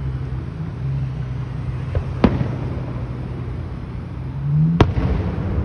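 Fireworks shells bursting: two sharp bangs about two and a half seconds apart, over a steady low hum.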